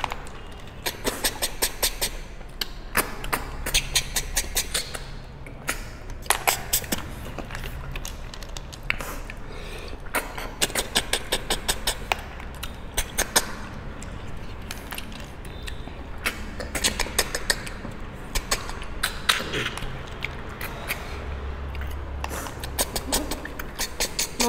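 Wet sucking and slurping as two people suck cooked snails out of their shells, in rapid bursts of clicks that come again every second or so.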